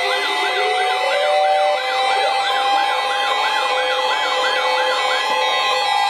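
Several weather radios sounding their alert alarms together: overlapping electronic siren tones, one warbling about three times a second until about five seconds in, another slowly rising, over steady beeping tones.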